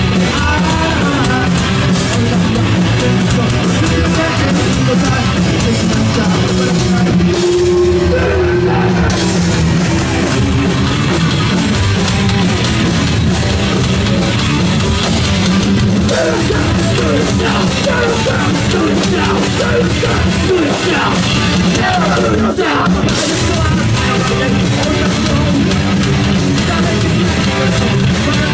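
Punk band playing live and loud: electric guitars, bass and drum kit, with a singer shouting into a microphone.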